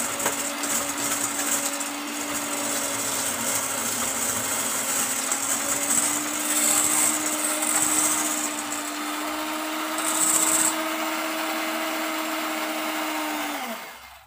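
Electric hand mixer running at a steady speed, its beaters whipping egg whites into a foam in a stainless steel bowl. Just before the end the motor is switched off and spins down, its pitch dropping, and the sound stops.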